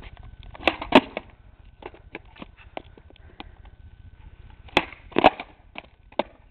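Skateboard on asphalt during manual attempts: the wheels roll with a low rumble, and the wooden deck clacks sharply on the ground about a second in and twice more near the five-second mark, with lighter ticks in between.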